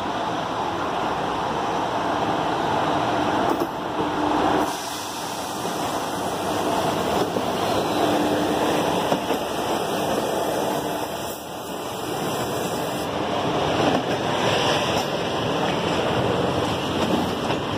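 A WAG5 electric locomotive and its passenger coaches passing close by. It makes a steady rush of wheels on rail, with a faint low hum running under it.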